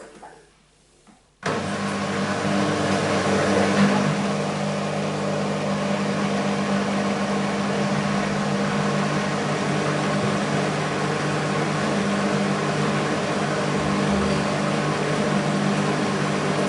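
BEKO WMB 51441 washing machine running with a steady, unchanging motor hum that starts abruptly about a second and a half in, after near-quiet.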